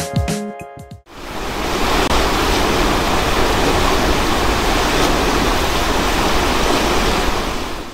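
A river in flood: the steady rushing of fast, turbulent, muddy floodwater. A few notes of music fade out in the first second, and the water noise starts about a second in and cuts off suddenly at the end.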